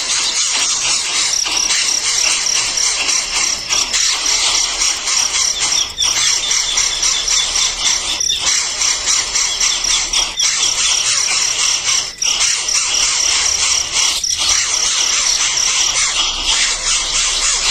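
Baby birds calling with dense, high-pitched chirping, a rapid run of repeated peeps going on almost without a break.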